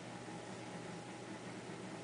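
Steady hiss with a faint low hum underneath and no distinct clicks or knocks.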